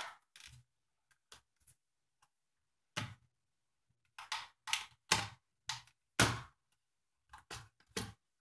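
Irregular sharp plastic clicks and snaps, about a dozen, as a TI-82 calculator's plastic back case is pried apart with a plastic wedge tool and its side clips release.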